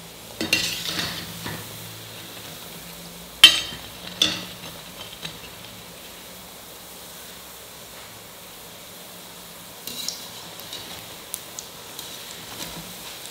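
Keerai bonda (greens fritters) deep-frying in hot oil in a steel pot, a steady sizzle throughout. A perforated steel ladle stirs them, scraping early on and knocking sharply against the pot twice, about three and a half and four seconds in. Near the end a few lighter clinks come as a wire-mesh strainer goes into the pot.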